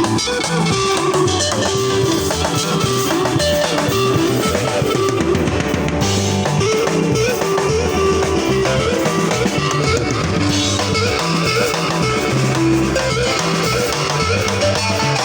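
Live band playing a sebene-style guitar groove: interlocking guitar lines over a bass line and a drum kit, continuous and loud.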